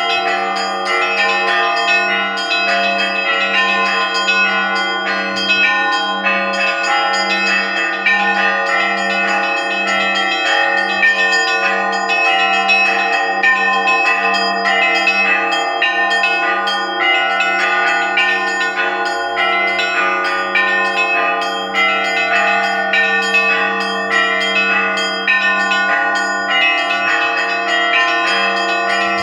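Russian Orthodox church bells in a festive peal: a low bell sounds in a steady beat under rapid, overlapping strikes of smaller, higher bells.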